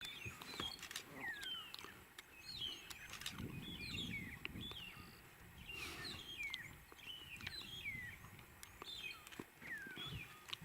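Small birds chirping, with many short, high whistled notes that slide downward in pitch and repeat every second or so, and a few faint clicks among them.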